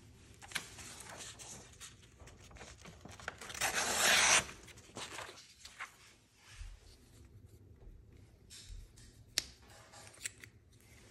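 A wood-handled folding knife being handled: rustling and rubbing with a few sharp metal clicks from its lock and lever, the last two near the end, and one louder scraping rush about four seconds in.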